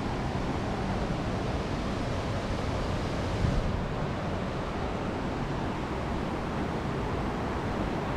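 Steady rushing rumble of wind on the microphone of a camera riding along on a bicycle, with a brief louder gust about three and a half seconds in.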